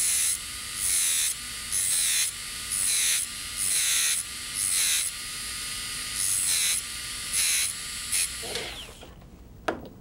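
Two dental electrotorque handpieces running, one spinning a carborundum disc against the steel shaft of a bur spinning in the other, grinding a groove in short bursts about once a second. The grinding and the motors stop a little before the end, followed by a single sharp click.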